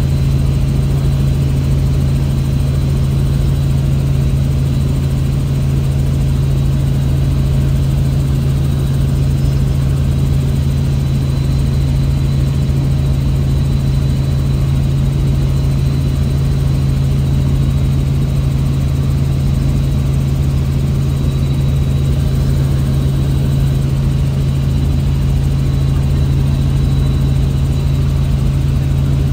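Helicopter engine and rotors running steadily: a loud, even drone with a faint high whine above it.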